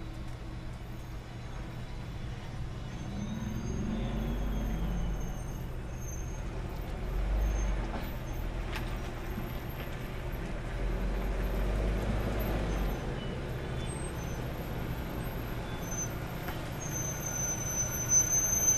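Ford-chassis Coachmen Class C motorhome driving in slowly and pulling up close, its engine a low rumble that grows louder as it nears.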